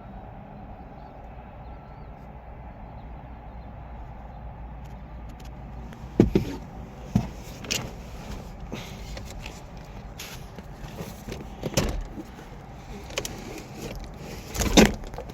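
Several sharp knocks and clunks from handling a wrecked SUV's doors and body panels, the loudest and longest near the end, over a steady low outdoor rumble.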